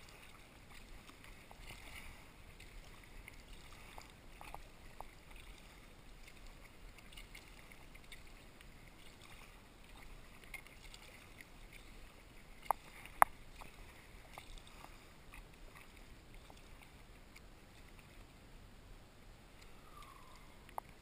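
Kayak paddle blades dipping into calm water stroke after stroke, with soft splashes and drips. Two sharp knocks come close together a little past halfway.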